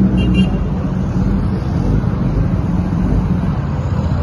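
Motorcycle engines idling at a bike meetup, a steady low exhaust sound, with a brief high tone near the start.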